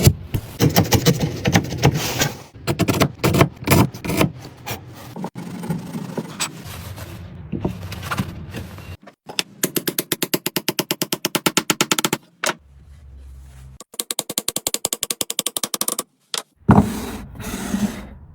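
Hand tools working wood: irregular scraping and rasping strokes, then, about halfway through, runs of quick even strokes about nine a second that stop abruptly.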